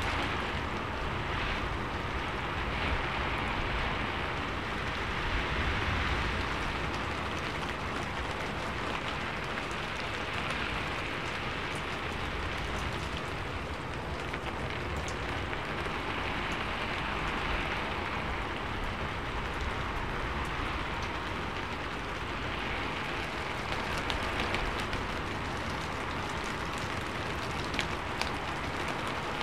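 Steady rain falling on a sheet-metal roof: an even, dense patter with scattered sharper ticks of single drops.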